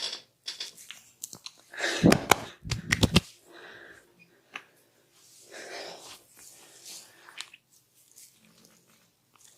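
Hands rubbing and kneading an oiled scalp and hair in a vigorous head massage, a wet, crunchy rubbing sound. About two seconds in comes a louder flurry of rapid sharp impacts lasting about a second.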